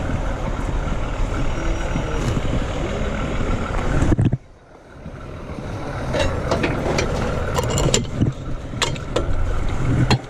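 Heavy tow truck engine running steadily, with short metallic clanks and clinks of rigging being handled. The rumble drops away briefly about four seconds in, then builds back up.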